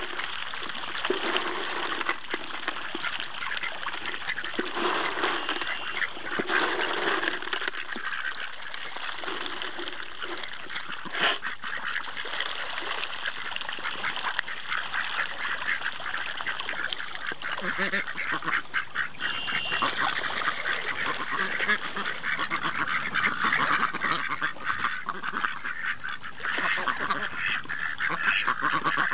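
A flock of domestic ducks, mallards among them, quacking continually over one another while they jostle for food pellets on the water, with water splashing under them.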